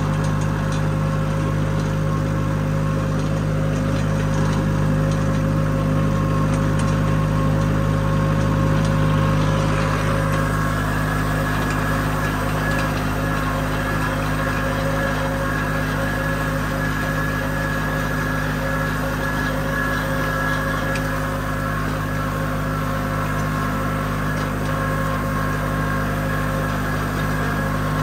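Tractor engine running at a steady speed while raking hay, a constant low hum that holds one pitch throughout.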